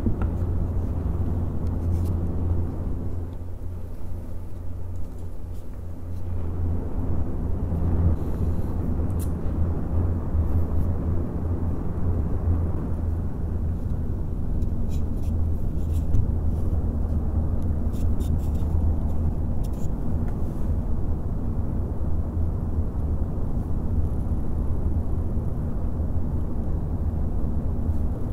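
Several Noctua NF-A14 PWM 140 mm fans, run from USB power, blowing close to the microphone: a steady rush of air over a low hum and buffeting rumble. It eases a few seconds in, then picks back up.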